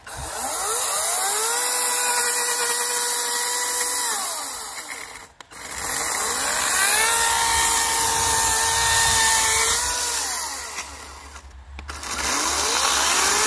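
Electric chainsaw motor spinning up with a rising whine, running at a steady pitch for a few seconds, then winding down. It is triggered twice this way, and revs up a third time near the end.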